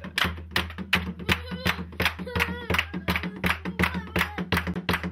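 A group of people clapping their hands together in a steady, quick rhythm, about three to four claps a second. A voice calls out or sings briefly over the clapping in the middle.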